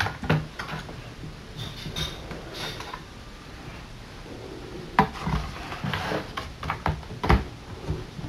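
Soft handling noises and light knocks of a rubber stamp being picked up and pressed down onto a paper album page, with a few sharper taps in the second half.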